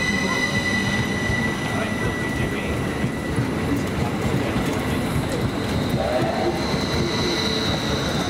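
Northern class 331 electric multiple unit pulling away along the platform: a steady rumble of the wheels on the rails with a high electric whine from its traction equipment. The whine fades after a few seconds, and a higher tone comes in near the end.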